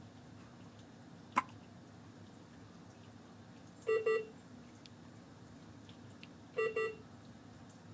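Hiccups: a sharp, click-like hiccup about a second and a half in, then two louder hiccups, about four and six and a half seconds in, each a quick double with a short squeaky tone.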